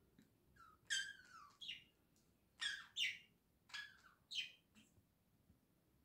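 Budgerigar chirping: about six short, high calls in quick succession, several sliding down in pitch, between about one and four and a half seconds in.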